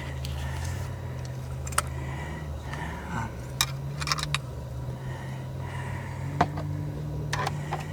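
A few light clicks and small metallic clinks from fishing rods and reels being handled, over a steady low hum that wavers briefly about three seconds in.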